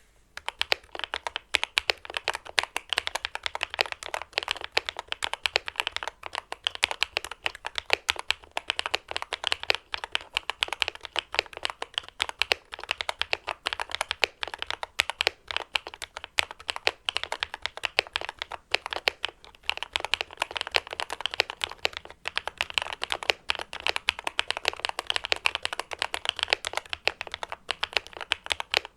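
Modded Langtu GK65 mechanical keyboard being typed on quickly: a dense, continuous stream of key clicks, starting about half a second in.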